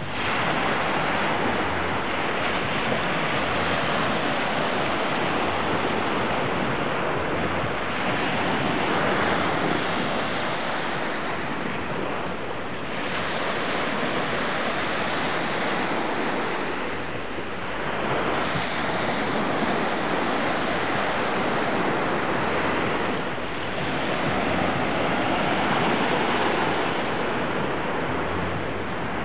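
Small Black Sea waves breaking and washing up a sandy beach: a steady surf wash that dips slightly every five or six seconds between waves.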